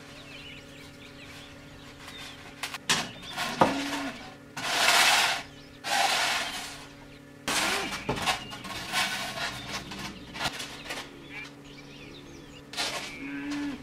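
Utility knife drawn through a thick polystyrene foam board in two long scraping strokes a little before the middle, with sharp knocks from the foam panels being handled around them.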